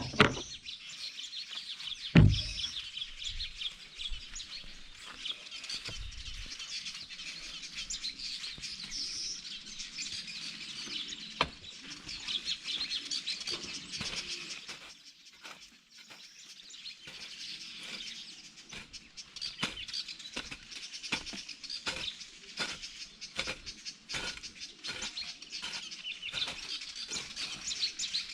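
Birds chirping and twittering continuously. Two heavy thumps come in the first couple of seconds, and short sharp knocks recur through the rest, coming more often towards the end.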